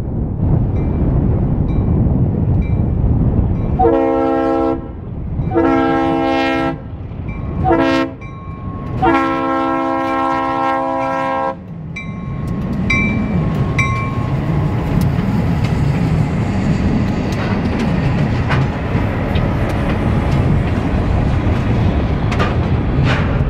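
Diesel freight locomotive sounding its multi-note horn in the grade-crossing pattern, long, long, short, long, starting about four seconds in. The locomotives' engines and the freight cars then rumble past, with scattered clicks from the wheels on the rails.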